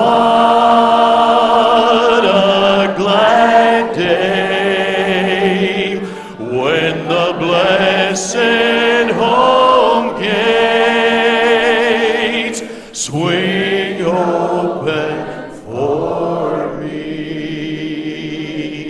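A man singing a slow gospel song into a microphone, in several long phrases of held notes with a wavering vibrato, over accompaniment. The song fades out near the end.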